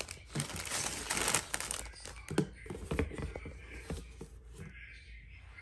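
A crinkly chip bag and plastic water bottles being handled: about a second and a half of crinkling, then a few light knocks and taps as bottles are picked up and moved.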